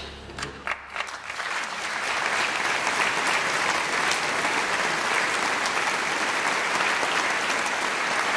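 Audience applauding at the end of a live band's piece. The last held notes fade out at the start, a few scattered claps follow, and within about two seconds it swells into steady, full applause.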